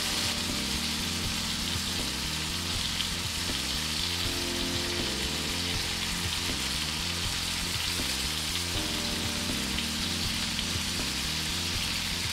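Two ribeye steaks sizzling steadily in oil and melting butter in a hot stainless steel frying pan.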